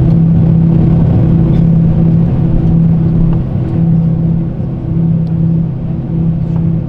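Cabin sound of an Airbus A340-300 taxiing after landing, its CFM56 engines at idle: a loud, steady low hum with a slow, regular throb in its tone.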